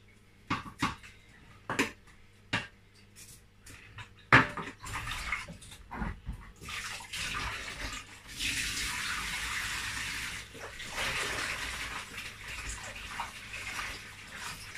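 A few light clicks and knocks, then, from about four seconds in, a kitchen tap running into a plastic bowl as cut yam pieces are rinsed and swished by hand. The water runs steadier and fuller from about eight seconds in.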